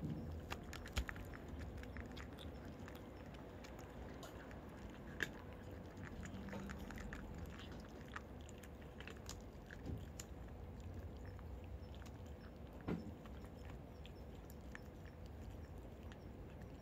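Cats crunching dry cat food: a faint run of small irregular clicks and crunches, with a few louder knocks now and then.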